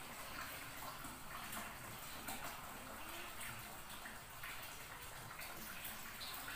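Faint steady hiss of background noise, with a few faint ticks scattered through it.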